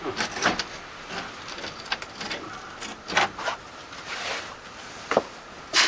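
Scattered short scrapes and clicks of hand work as a part is forced into a tight hole, about eight separate strokes with pauses between them.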